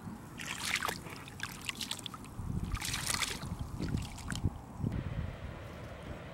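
Bare feet wading through shallow water, with several irregular splashes in the first few seconds. A steady faint wind hiss follows near the end.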